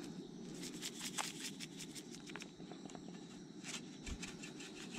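Faint outdoor ambience with a steady low hiss of air and scattered small clicks and rustles.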